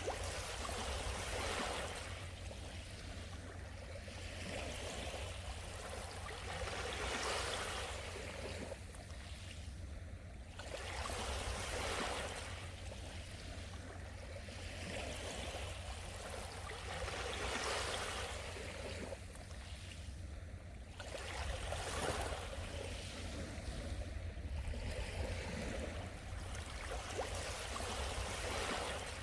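Small sea waves washing onto the shore, each swell of surf rising and falling away every few seconds, over a steady low rumble.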